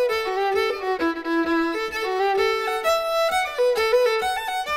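Background music: a quick, lively melody with notes changing several times a second.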